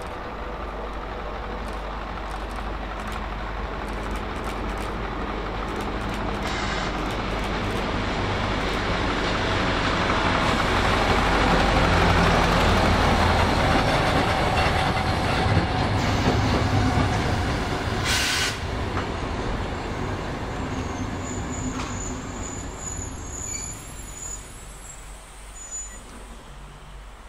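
A Tka7 rail tractor's diesel engine grows louder as it draws two passenger coaches slowly past. The coaches' wheels then roll by on the rails and fade as the train comes into the station. A short hiss of air comes about two-thirds of the way through, and a faint high squeal near the end.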